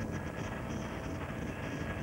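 Police helicopter running, heard from on board: a steady rush of rotor and turbine-engine noise with a faint high whine over it.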